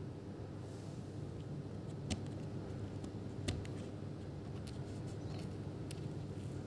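A steady low hum with a few scattered sharp clicks and taps, the loudest about three and a half seconds in.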